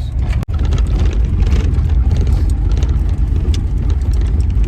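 Steady low rumble of a car, with small clicks and rattles over it. The sound cuts out for an instant about half a second in.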